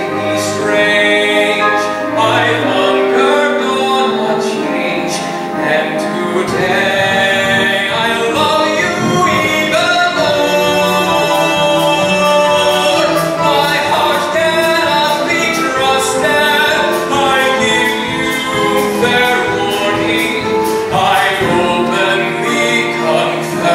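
A male voice singing a slow musical-theatre ballad, with instrumental accompaniment.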